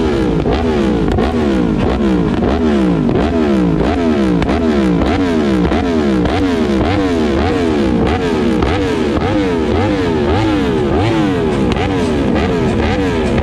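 Sport motorcycle engine revved over and over, about twice a second, its pitch climbing and falling back on each throttle blip.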